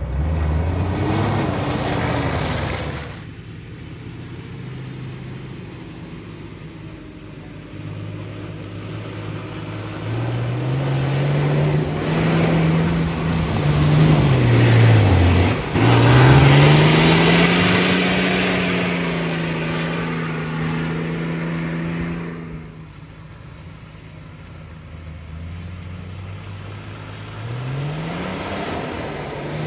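An off-road 4x4's engine running and revving, its pitch climbing over several seconds, dropping sharply about halfway through and climbing again, with a rushing hiss that is loudest in the middle. It falls back to a lower, quieter hum and starts to rise again near the end.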